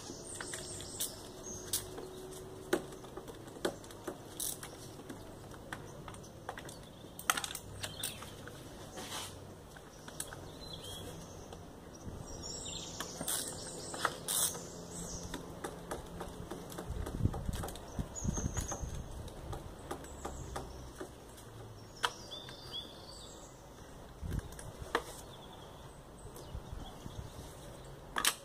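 Metal hand tools clicking and knocking on the intake manifold bolts of a BMW 320d E46 as the manifold is unbolted: irregular sharp clicks with a few duller thumps just past the middle. Birds chirp now and then in the background.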